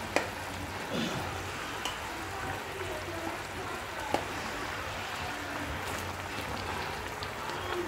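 Thin masala curry gravy bubbling steadily in a frying pan, with a sharp click just after the start and another about four seconds in.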